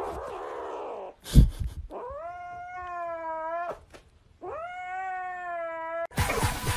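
A kitten yowling: two long drawn-out calls, each rising at the start and then held, the first following a thump about a second in.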